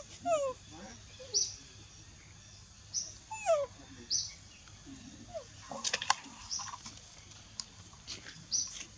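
Baby macaque giving a few short, high squeaks that fall in pitch, the loudest about three and a half seconds in. Short high chirps repeat every second or so in the background.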